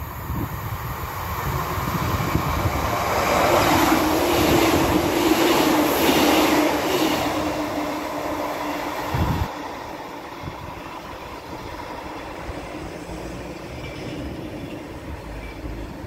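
British Rail Class 150 Sprinter diesel multiple unit running along the platform. Its engine and wheels build to a peak, with a steady droning tone through the middle. The noise drops away sharply about nine seconds in, leaving wind rumble on the microphone.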